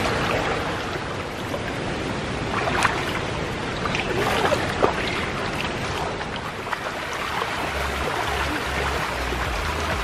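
Shallow stream water rushing and trickling over rocks, with a few small splashes as bare feet wade through it.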